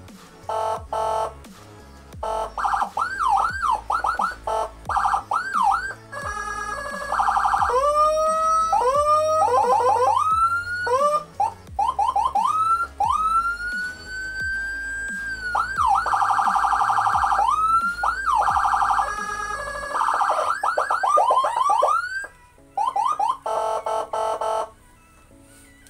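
40-watt electronic siren module sounding through its speaker and switching patterns every few seconds: quick repeated yelps, rising whoops, a fast warble and one long slow wail in the middle. The module has just been repaired and is working again.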